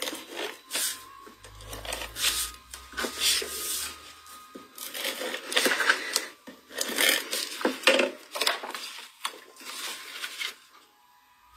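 Sheets of cardstock and patterned paper rustling and sliding against each other and the tabletop as they are picked up and laid in place, a string of short rustles and scrapes.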